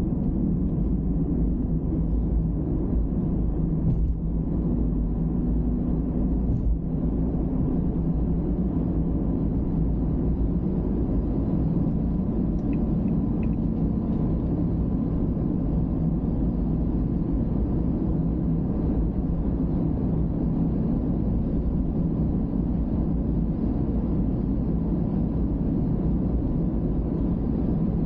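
Steady rumble of road and engine noise from a car cruising on an expressway, heard through a dashcam inside the cabin, with a couple of light thumps about four and seven seconds in.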